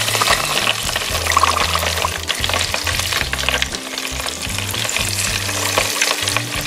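Bratwursts deep-frying in a deep fryer, the fat crackling and sizzling steadily around the sausages.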